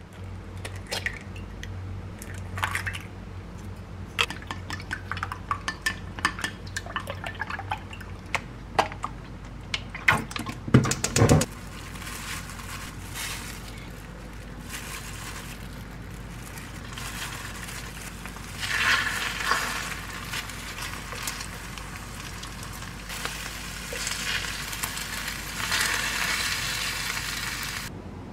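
Eggs cracked into a glass bowl and beaten with quick clinking strokes. About twelve seconds in, egg-coated perilla-leaf and crab-stick rolls start sizzling in an oiled frying pan, the sizzle growing louder at times.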